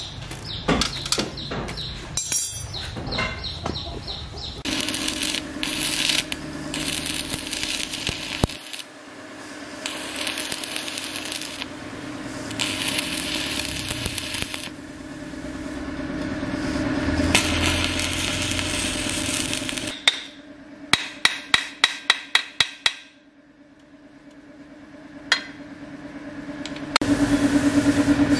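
Metal parts clinking and knocking, then stick arc welding on a steel motorcycle frame bracket: crackling, sputtering arc in several bursts a second or two long, over a steady welder hum. After that comes a quick run of sharp metal strikes, and near the end loud, fast hammering on metal begins.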